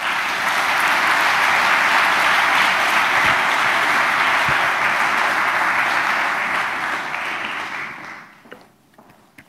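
Audience applauding: a steady round of clapping that dies away about eight seconds in.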